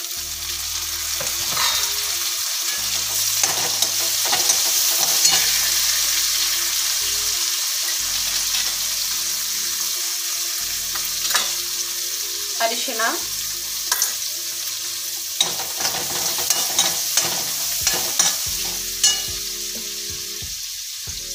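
Freshly added chopped tomatoes and onions sizzling in hot oil in a deep kadai, with a steady hiss, and a steel spoon stirring and scraping against the pan in sharp clicks that come more often in the second half.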